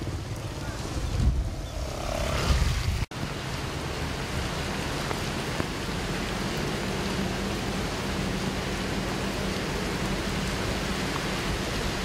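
Steady hiss of rain and wind, with gusts buffeting the microphone in the first three seconds. After a short break about three seconds in, an even rain hiss continues.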